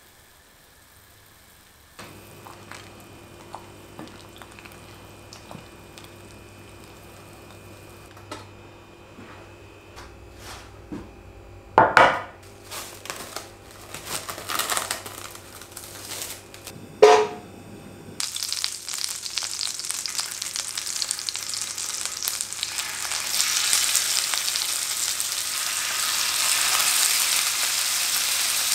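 Plastic cling film crackling as it is pulled and stretched over a glass bowl of marinated chicken, with two loud sharp crackles. Then marinated chicken strips sizzling as they are laid one by one into a hot oiled grill pan, the sizzle growing louder as more pieces go in.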